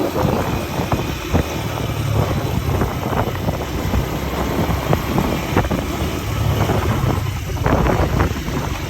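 Wind buffeting the microphone over a steady rumble, with scattered small knocks, while riding a hoverboard.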